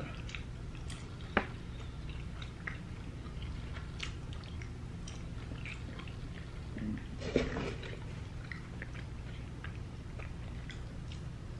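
Close-up chewing and mouth sounds of people eating fast food, with scattered small clicks, over a steady low hum. A sharper click comes about a second and a half in, and a brief louder sound about seven seconds in.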